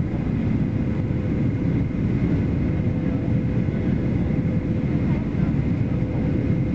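Steady airliner cabin noise on the approach to land: a low rumble of the jet engines and rushing airflow, with a faint steady whine held at two pitches.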